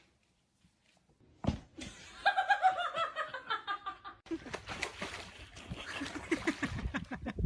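A person laughing in a quick run of short syllables that falls in pitch, then, after an abrupt cut, lower and more rhythmic laughter.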